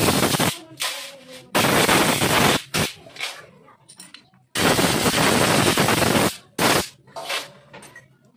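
Compressed air from an air-compressor blow gun, fired in a series of loud blasts of hiss, some short and two or three lasting a second or more, blowing dirt out of carburetor passages.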